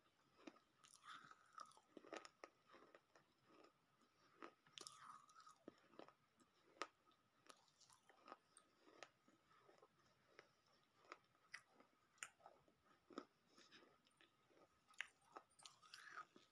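Faint, close-up crunching and chewing of broken pieces of baked clay, with many small, sharp crunches coming irregularly several times a second.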